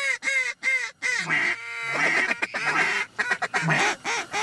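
Mallard duck calls blown by hunters working incoming ducks: a quick run of quacks, then a held note and fast raspy chatter.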